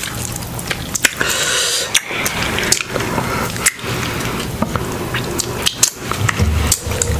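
Wet eating sounds of boiled shrimp: shells being peeled off with many sharp little clicks, lips sucking the juice, chewing, and squishes as shrimp is dipped into a bowl of sauce.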